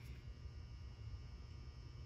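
Faint steady low hum of room tone, with no distinct handling sounds.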